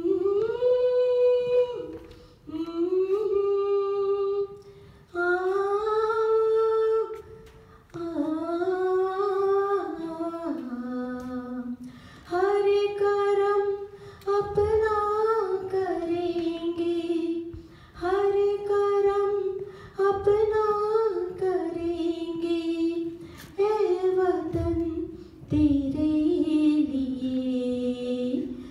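A woman singing unaccompanied into a microphone, in sustained melodic phrases of about two seconds each with short breaths between them.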